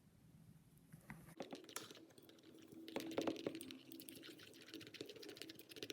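Faint small clicks and scraping of a spoon stirring a thick mixture of PVA glue, starch and hand cream in a bowl, busiest a few seconds in.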